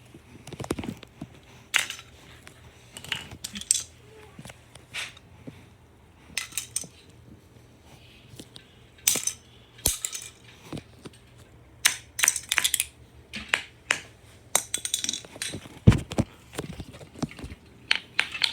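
Small plastic Lego bricks clattering and dropping in irregular bursts of sharp clicks, over a faint low steady hum.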